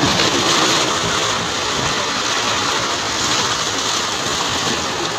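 Steady rushing of sea surf washing over shoreline rocks.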